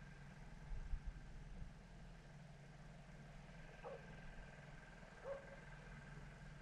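Faint steady low hum, with a couple of soft bumps about a second in and two brief faint chirps a second and a half apart.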